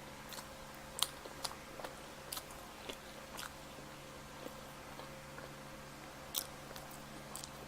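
Close-miked chewing of pizza: irregular wet mouth clicks and smacks, bunched in the first few seconds and again near the end, over a faint steady hum.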